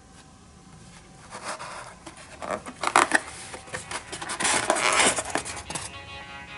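Metal clicks, rattles and short scrapes from a full-metal Galaxy G3A spring airsoft pistol being handled, with the densest run about halfway through.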